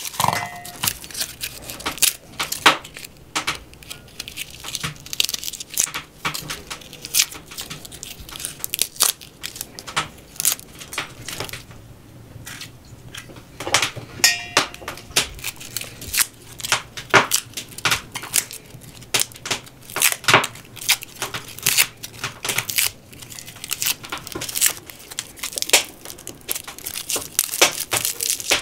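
Papery garlic skins crackling and tearing as a small knife peels the cloves, in quick, irregular crisp clicks, with a short lull about twelve seconds in.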